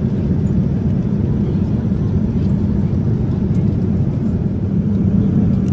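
Steady low rumble of an airliner cabin in flight: engine and airflow noise.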